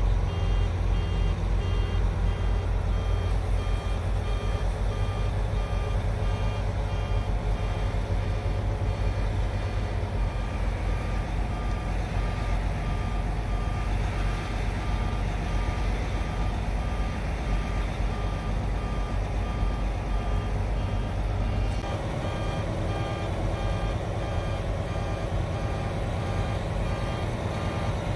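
Mack truck's diesel engine running at about 1,200 rpm, heard inside the cab as the truck creeps along held to 8 km/h by an SCR system fault derate, with a steady repeating electronic beep over it. The engine note shifts abruptly about three-quarters of the way through.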